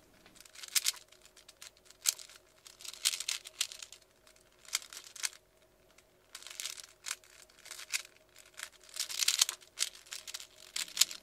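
A 3x3 Rubik's cube being turned by hand: bursts of quick plastic clicking and rattling as the layers are twisted, in short runs with brief pauses between, over a faint steady hum.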